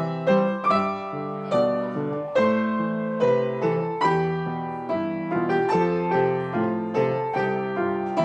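Upright piano being played: chords and melody notes struck about twice a second, each ringing on and fading before the next.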